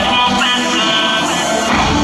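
Loud pop-rock dance track with guitar, playing over a stage sound system for a dance performance.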